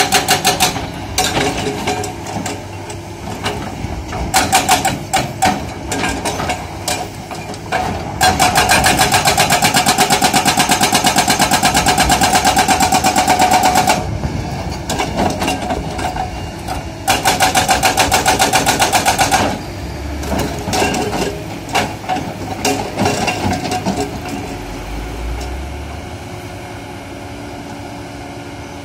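Hydraulic rock breaker on a SANY SY215C excavator hammering hard rock in rapid, even blows. The blows come in runs of several seconds, with the excavator's diesel engine running in the gaps. The hammering stops for the last few seconds, leaving only the engine.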